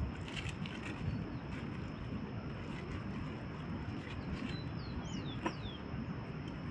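A few short, high bird chirps, each falling in pitch, about five seconds in, over a steady outdoor rushing noise.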